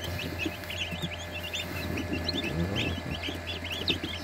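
Newly hatched Tetra and Leghorn chicks peeping constantly, many short high chirps overlapping with no pause, over a steady low hum.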